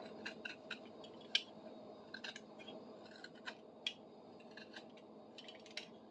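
Knife shaving a high spot off a wooden tool handle: faint, short, irregular cutting and scraping strokes, with one slightly sharper cut about a second in. It is a stage of trimming the handle until it fits the tool's socket.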